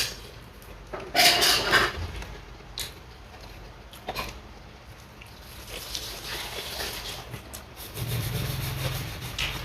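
A person eating: rubbing and handling noises with scattered clicks, a short loud burst of noise about a second in, and a low hum near the end.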